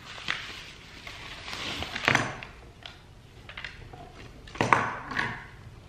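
Paper padded mailer and paper wrapping rustling and crinkling as an item is pulled out and unwrapped by hand, with two sharper, louder handling noises, one about two seconds in and one a little over a second before the end.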